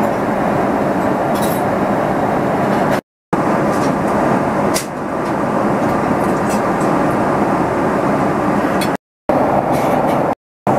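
Steady in-flight cabin noise of a Boeing 777-300ER airliner, the constant rush of airflow and engines. It drops out to silence briefly about three seconds in and twice near the end.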